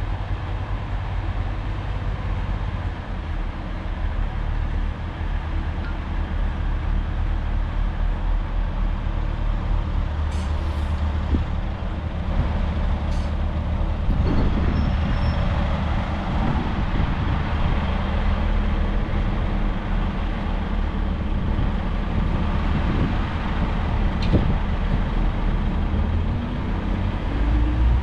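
Diesel engine of a British Rail Pacer railbus running steadily at idle, with a deep, even drone.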